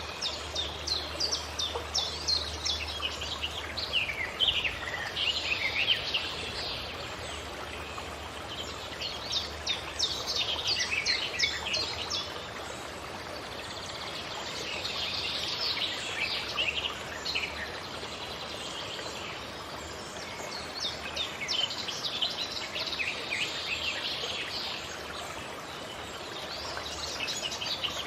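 Birds singing in a forest: bouts of rapid, high chirping phrases that come and go every few seconds over a steady soft background hiss.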